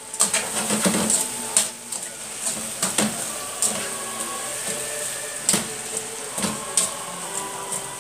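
Metal tongs clacking and scraping against a frying pan in irregular strokes as fried chicken pieces and onion rings are tossed, over a faint frying sizzle.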